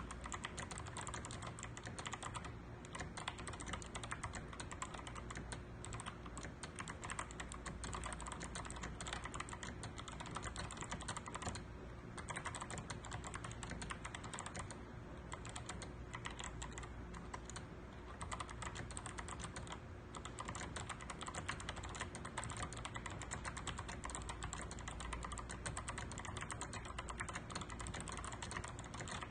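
Fast, continuous typing on a Ganss GS87 mechanical keyboard with clicky Kailh Box White switches under tall SA-profile keycaps, a dense stream of sharp key clicks with only brief slight lulls.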